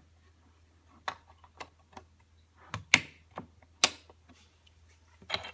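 Plastic LEGO Duplo bricks clicking and knocking together as window-frame pieces are handled and pressed onto the toy ship: a scattered run of sharp clicks, with two louder snaps about three and four seconds in.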